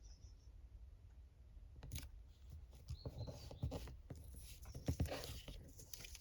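Faint paper handling: rustling with small clicks and taps, starting about two seconds in and busiest in the second half.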